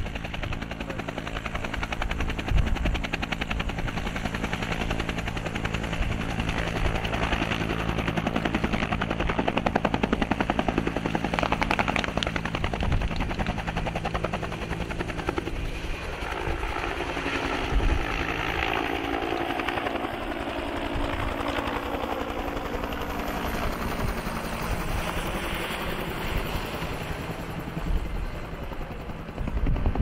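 UH-1 Huey helicopter running, its turbine and rotor giving a steady drone with several held low tones; in the second half a band of its tones slides downward in pitch. A few sharp bangs are heard over it, about a second or two in, near the middle, and near the end.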